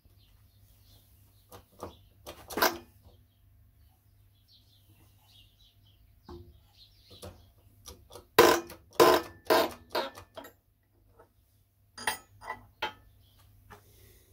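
Scattered sharp knocks and clicks of a small hand press and steel drift pushing the old ball bearing out of the plastic end cap of a Mercedes auxiliary heater water pump, the loudest run about eight to ten seconds in, over a faint steady hum.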